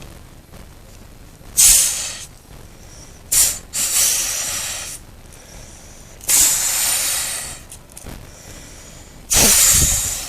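Homemade deer wheeze call made from a drinking straw and its paper wrapper, blown in about five hissing blasts that start sharply and trail off, most lasting about a second, imitating a buck's wheeze.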